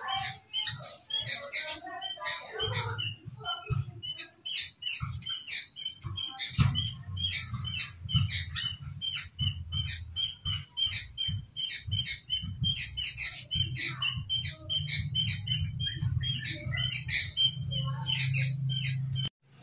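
A bird chirping over and over, short high calls about two to three a second. A steady low hum joins about six seconds in.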